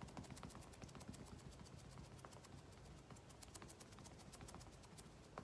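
Faint, quick, irregular tapping, several taps a second: a paint applicator dabbing white paint onto a small MDF ornament cutout.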